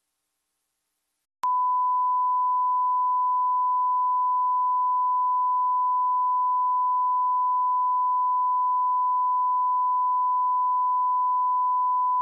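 Broadcast line-up test tone sent with colour bars: one steady, unbroken pure beep at a constant level, cutting in abruptly out of dead silence about a second and a half in.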